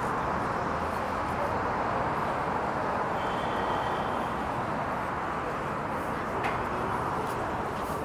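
Steady city traffic noise: a constant wash of passing cars on the surrounding roads.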